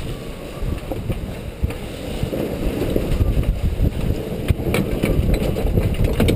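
Wind buffeting the microphone aboard a sailboat under way, a dense low rumble with the rush of water, and a few faint clicks in the second half.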